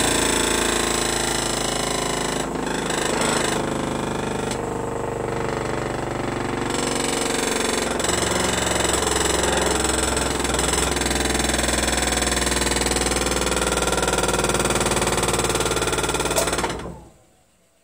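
Homemade 12-inch pulley-driven disc sander running with a heavy rattling vibration, which the builder puts down to a disc that is not straight. The sound stops near the end.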